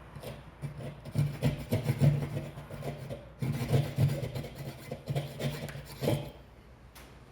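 Hand saw cutting through drywall in uneven rasping strokes, cutting out the opening for an old-work outlet box; the sawing stops about six seconds in.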